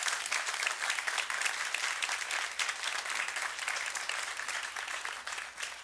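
Studio audience applauding, many hands clapping densely, slowly thinning toward the end.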